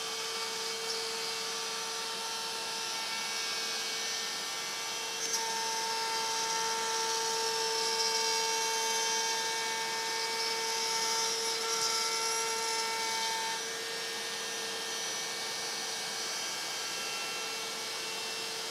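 CNC router spindle cutting a circular recess in half-inch birch plywood, a steady high machine whine. The cutting gets louder and a higher tone joins it about five seconds in, then eases back after about thirteen and a half seconds.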